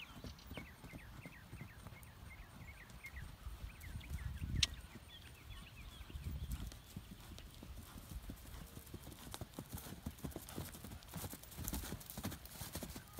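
Hoofbeats of a six-week-old Westphalian colt trotting and cantering on grass and dirt, irregular soft thuds and clicks. One sharp knock stands out about four and a half seconds in.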